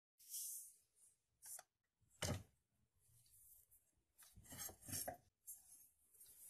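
Faint, scattered handling noises from a steel knife blade on a wooden board held in a bench vise: a brief scrape near the start, a single dull knock about two seconds in, and a few rubbing scrapes around four to five seconds in.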